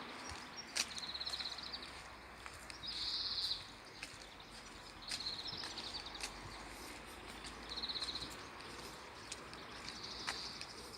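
Insect chirping in short, high, rapidly pulsed trills, five of them about two seconds apart, over a steady outdoor background, with a few sharp clicks.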